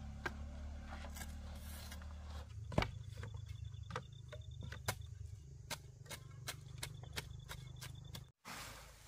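Irregular knocks and taps of a wooden pole tamping earth around a bamboo post, the loudest knock about three seconds in. A faint high insect trill comes and goes in the background.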